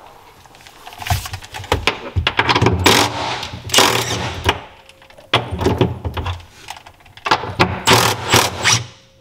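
Cordless Milwaukee FUEL power tool running in several short bursts on the engine's motor-mount bolts, with a clattering whir each time the trigger is pulled.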